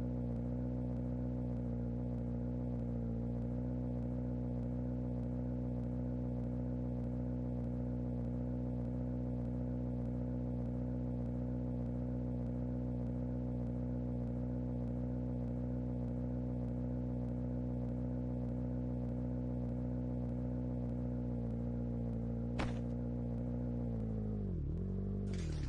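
A steady low machine hum with many even overtones. A single sharp click comes near the end, and shortly after it the hum's pitch dips and recovers.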